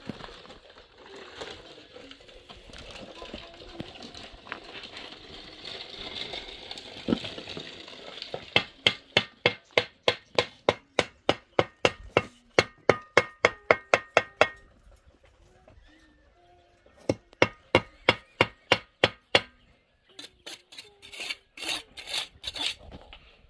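Quick, even knocks on wood, about four a second, in several runs with short pauses between them. Before the knocking starts there are several seconds of low rubbing and shuffling.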